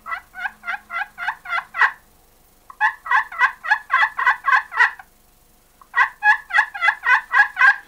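Glass pot turkey call worked with a striker, giving hen yelps: three strings of about nine to eleven even notes each, with short pauses between them.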